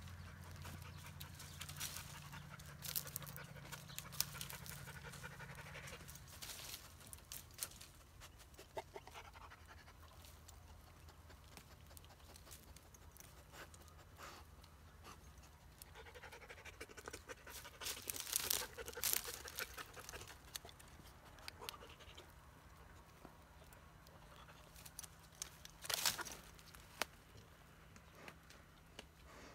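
Two Turkish shepherd dogs panting and sniffing as they push through dry brush around a tree stump, with rustling and crackling of twigs and branches. Louder clusters of crackles come about halfway through and near the end, over a low steady hum that fades after the first few seconds.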